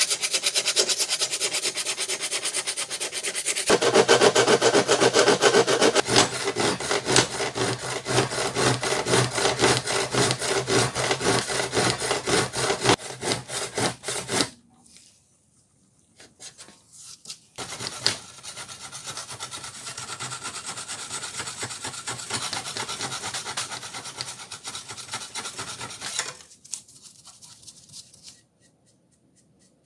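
Abrasive scraping and rubbing as an old club hammer's wooden handle and steel head are sanded and filed. It gets louder at about four seconds, with a steady low hum underneath, and stops near the middle. After a pause it comes back more quietly and stops again near the end.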